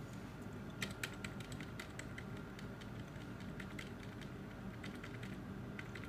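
Computer keyboard key tapped over and over, a scattered string of sharp clicks, as the PC boots into BIOS setup, over the steady low hum of the running computer.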